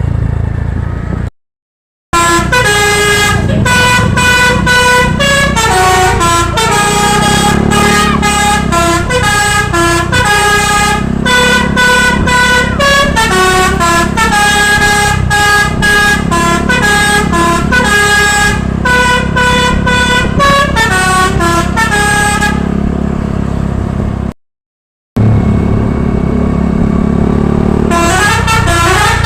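Basuri telolet horn on a bus playing a tune: a quick string of pitched horn notes stepping up and down, over the low rumble of the bus on the road. The sound drops out to silence twice, briefly, about a second in and near the end.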